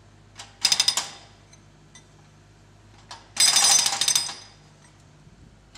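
A hydraulic breaker on a mini digger's arm is hammering into a concrete footpath in two loud bursts of rapid strikes. The first is short, about half a second in. The second lasts about a second, starting around three and a half seconds in. Between the bursts the digger's engine runs faintly.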